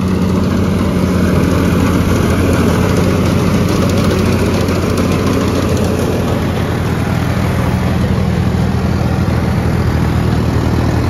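Farmtrac tractor's diesel engine running steadily under load, driving a tractor-drawn straw reaper, with the dense rush of the reaper chopping and blowing straw mixed in.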